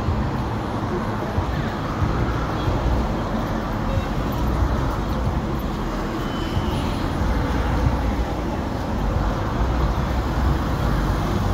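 Steady road traffic on a busy multi-lane road, cars passing close by.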